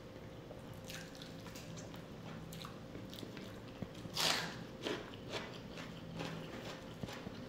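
Close-miked eating: wet chewing and mouth clicks, with one loud crunchy bite into a whole raw onion about four seconds in, followed by a few smaller crunches. A faint steady hum runs underneath.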